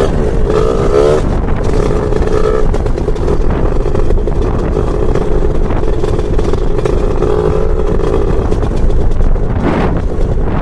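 Lambretta scooter with a BFA 325-type two-stroke engine running under way, its note rising and falling with the throttle. The pitch wavers in the first second, then dips and climbs again near the end.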